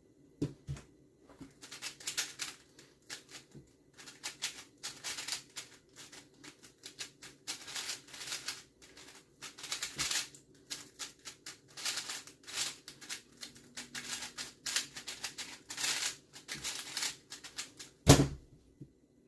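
Speed cube being turned fast by hand: rapid plastic clicking and clacking of the layer turns in bursts with short pauses, ending with one loud thump near the end.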